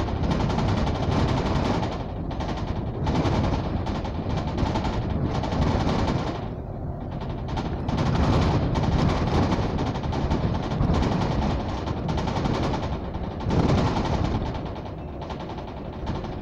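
Dense rapid rattling over low rumble inside a moving double-decker bus's upper deck. The rattle eases briefly a few times.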